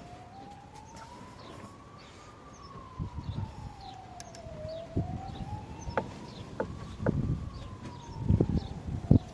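An emergency-vehicle siren wailing faintly, one slow rise and fall every four to five seconds, over knocks and clatter of tools and metal parts, the sharpest knocks near the end.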